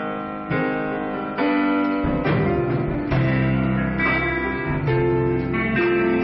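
A small band rehearsing: an electronic keyboard plays chords together with guitars. Low notes join about two seconds in.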